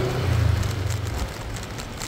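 Small motorcycle engine running with a low rumble, loudest in the first second and easing off after that.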